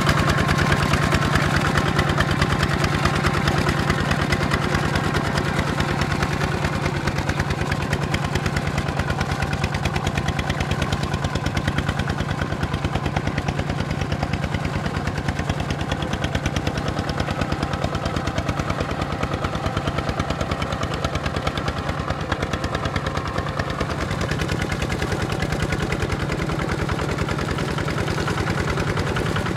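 Single-cylinder diesel engine (Kubota ZT155) of a two-wheel walking tractor running steadily under load as the tractor pulls its steel cage wheels through deep mud, with a rapid, even chug of exhaust beats.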